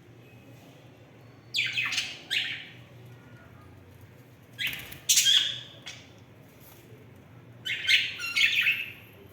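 Pet budgerigars chirping in three short bursts, each a quick run of sharp high calls, about three seconds apart.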